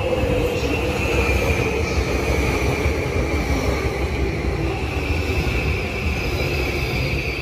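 JR East E235 series electric commuter train running past at low speed with a low rumble of wheels on rails. Over it, a steady whine slowly falls in pitch as the train slows.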